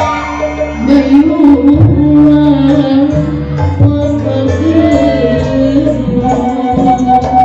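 Traditional Sundanese music for a wedding welcoming dance: hand drums beating under a wavering, held melody line.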